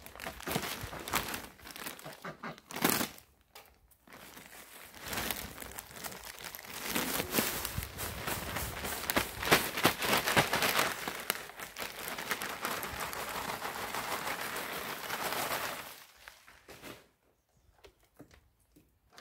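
Plastic bag of potting mix crinkling as it is handled, then a long continuous rustle as the mix pours out of the bag into the bed. The rustle cuts off near the end.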